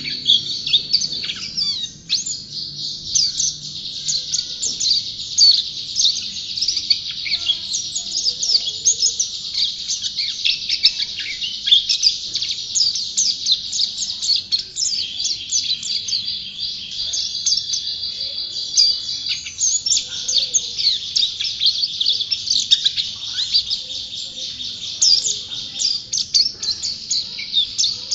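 White-eye (pleci, a Zosterops songbird) singing non-stop: a fast, high twittering song of rapid chirps and trills.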